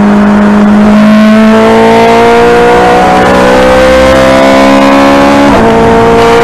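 Ferrari 430 Scuderia's 4.3-litre naturally aspirated V8 at full throttle, heard from inside the cabin: the revs climb slowly, drop sharply at a quick upshift about five and a half seconds in, then climb again.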